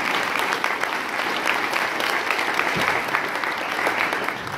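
Audience clapping, a dense round of applause that starts to die down near the end.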